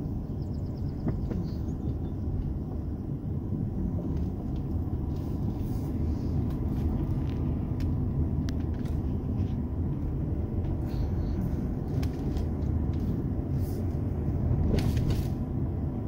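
Steady low rumble of a car driving along a paved road, heard from inside the cabin, with a few faint clicks and rattles scattered through it.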